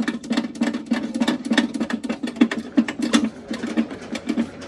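Steel chain clinking and rattling as it is pulled off a chain dispenser reel, a quick, irregular run of metal clinks throughout.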